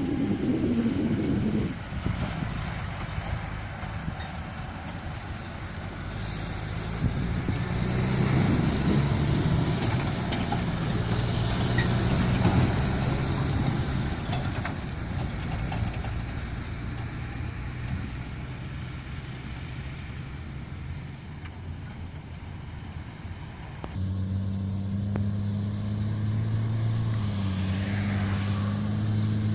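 Diesel engine of a heavy three-axle truck running under load as it pulls a silage trailer, its rumble and pitch changing as it drives past and across the field. Near the end a steadier, even-pitched engine hum.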